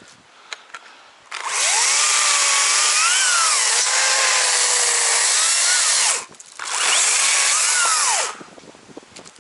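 Chainsaw cutting into a thick fallen tree trunk in two bursts at high throttle, the first about five seconds long and the second shorter after a brief pause, its pitch sagging and rising as the chain bites into the wood.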